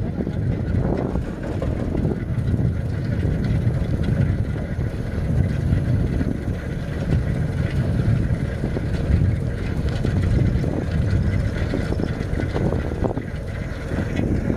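Wind buffeting the microphone while travelling along a road, a loud, steady low rush that swells and dips without a break.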